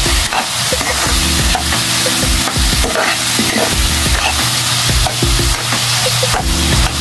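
A metal spatula stirring and scraping fried rice around a metal wok, with repeated scrapes about twice a second over the sizzle of the rice frying.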